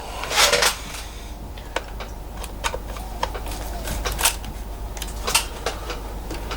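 Screwdriver working at a wire terminal screw in a lathe's electrical box: scattered light metallic ticks and taps, with a brief scrape near the start.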